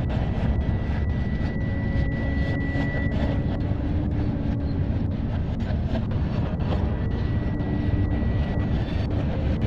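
Steady low rumble of a freight train rolling past, with a faint high steady tone and light ticks a few times a second.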